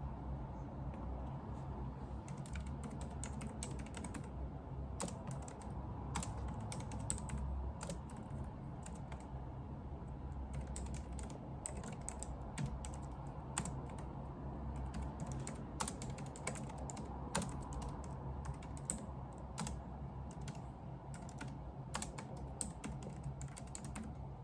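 Typing on a computer keyboard: irregular keystrokes in uneven runs, over a steady low hum.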